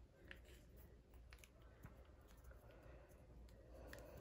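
Near silence with a few faint clicks: small handling noises of a plastic case as dental floss is pulled from it.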